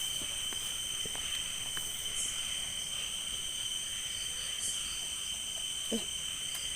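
Night insect chorus, crickets trilling steadily in several high-pitched bands held together. A brief faint low sound is heard about six seconds in.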